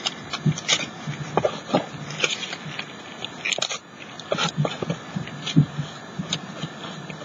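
Tissue paper rustling and crinkling in the hands, a string of irregular small crackles.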